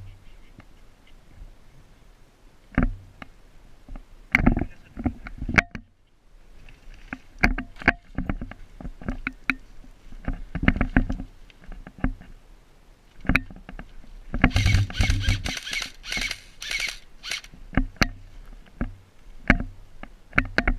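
Irregular knocks, clicks and rustles from a player's gear and movement close to the microphone, with a dense rattling burst lasting about two seconds a little past the middle.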